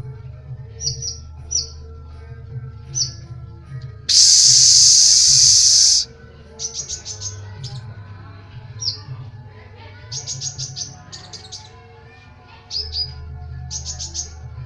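A kolibri ninja sunbird singing in short, rapid, high trills and chirps, repeated in bursts. A loud hiss of about two seconds cuts across the song a little after four seconds in, over quiet background music.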